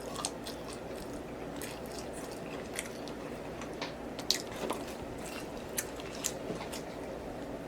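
A person chewing food, with scattered wet mouth clicks and smacks, over a steady low background hum.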